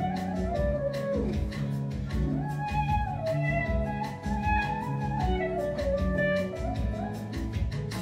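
Korg Kronos keyboard workstation playing a lead melody that slides between notes with pitch bends, over a steady programmed drum beat and sustained bass and chords.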